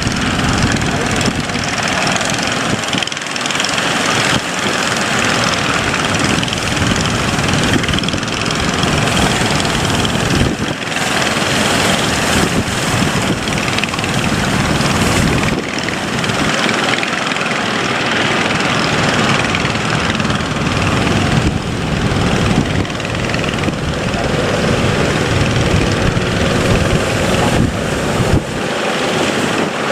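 A boat's engine running steadily under a loud, even rushing noise.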